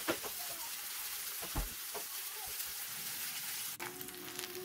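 Finely chopped onions sizzling as they fry in ghee on a hot iron tawa, cooking toward light golden brown. A silicone spatula stirs and scrapes them against the pan in the first couple of seconds.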